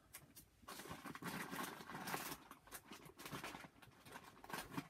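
Irregular rubbing and rustling as dust is wiped off a clear plastic part of a vacuum cleaner's power nozzle, starting about a second in.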